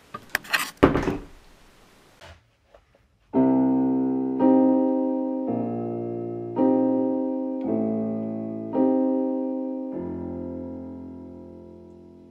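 A door shuts with a thunk about a second in. Then a piano plays slow chords, one struck about every second, and the last one rings on and fades away.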